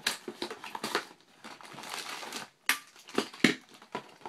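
Clear plastic toy packaging being crinkled and crackled by hands as it is worked open, with a few sharp plastic snaps in the second half.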